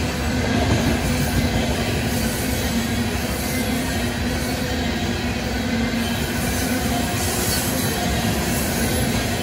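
Loaded tank-car freight train rolling past, a steady rumble of steel wheels on rail.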